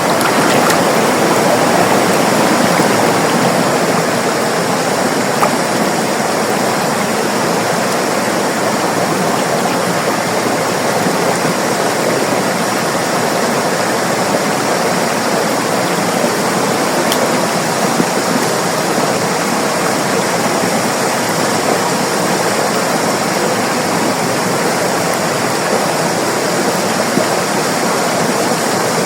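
A river flowing, giving a steady rush of moving water that is slightly louder in the first few seconds.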